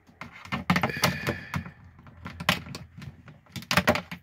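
A run of sharp plastic clicks and knocks from a digital multimeter and its test leads being handled, with the loudest bunches about a second in and near the end.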